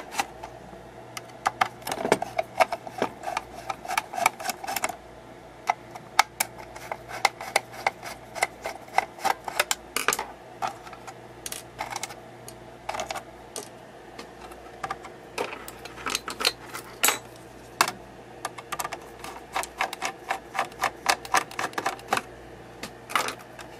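Irregular clicks and taps, several a second, from fingers and a screwdriver handling the actuator's plastic housing and circuit board, over a faint steady hum.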